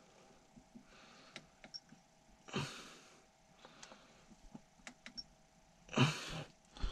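Faint clicks of small buttons being pressed on an ORSKEY dash cam while its date-and-time settings are changed, with one faint short high beep. Two short bursts of breathy noise, about two and a half seconds in and near the end, are louder than the clicks.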